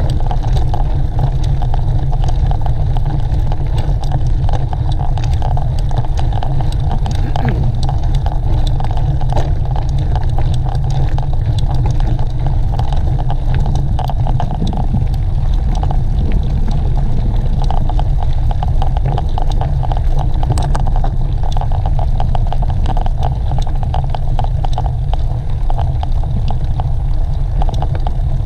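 Steady wind rumble on a moving camera's microphone, with rolling noise and many small rattles and clicks from riding over the course.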